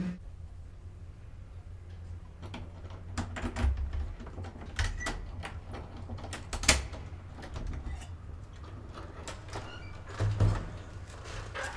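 Low steady hum with scattered small clicks and knocks, a sharp click about two-thirds through, and an apartment door thudding near the end.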